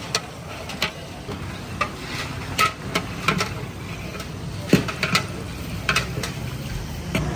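A metal ladle or spoon clinking and scraping against a cooking pot, in irregular sharp knocks about a dozen times, over a steady low background hum.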